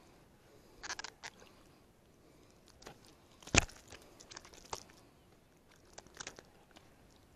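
Irregular clicks and rustles of close handling noise from a gloved hand working at the fishing rod tip and line, the loudest a sharp knock about three and a half seconds in.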